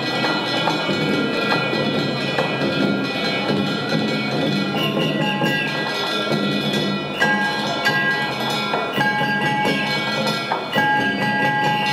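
Japanese festival percussion from a procession boat: a taiko drum beaten continuously under ringing metallic strikes, with fresh clangs about 7, 8, 9 and 11 seconds in.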